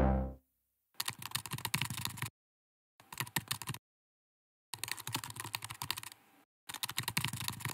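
Computer keyboard typing in four quick runs of clicks with short silent pauses between them, keeping time with text being typed out. The tail of a synth music sting dies away in the first half second.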